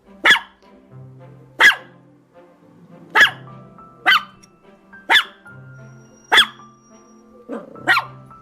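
A dog barking in single sharp barks, about one a second, over gentle background music with sustained notes.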